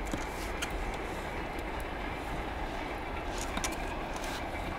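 A long wooden stick stirring and tamping soaked goose feathers in a large metal tub, giving a few short knocks and clicks over a steady rumbling noise.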